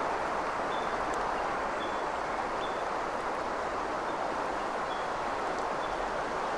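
Steady rush of a clear mountain river flowing over stones, with a small bird giving short, high chirps every half second or so.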